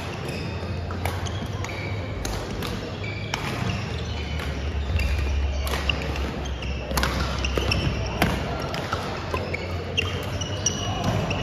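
Badminton play on several gym courts: repeated sharp racket hits on shuttlecocks and short high squeaks of court shoes on the wooden floor, over background chatter and a low hum.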